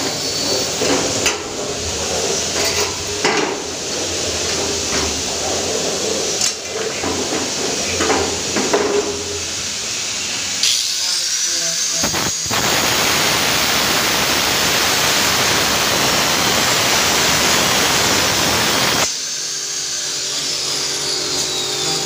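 Several seconds of metal clatter and knocks from a sheet-metal cable tray being handled. Then a handheld angle grinder whines up to speed, cuts into the tray with a steady hiss for about six seconds, and is released, its whine falling away. The cut notches the tray to bend it into an elbow.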